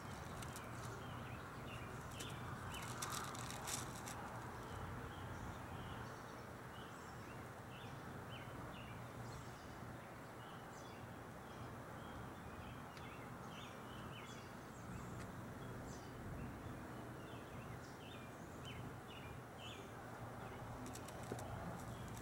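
Faint outdoor ambience with a bird chirping in short calls over and over, over a steady low hum; a few soft clicks near the start and again near the end.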